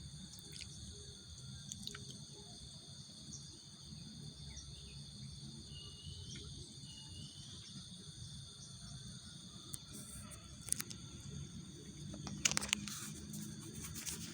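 Insects chirring steadily in several high, unbroken tones over a low background rumble, with a few sharp clicks near the end.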